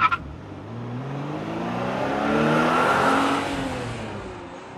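Race car engine running, rising in pitch and getting louder, then falling in pitch and fading away over the last couple of seconds.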